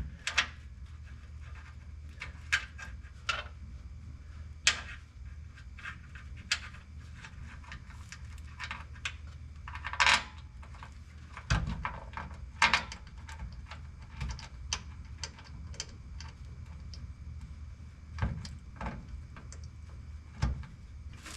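Scattered sharp metallic clicks and taps from bolts and hand tools being handled, with a louder cluster about ten seconds in, over a steady low hum.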